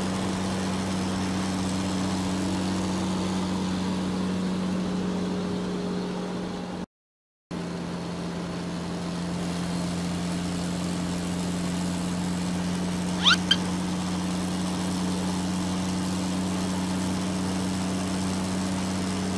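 Steady, low engine drone of a cartoon vehicle sound effect, cutting out completely for about half a second around seven seconds in. About thirteen seconds in, two quick rising squeaks stand out as the loudest sounds.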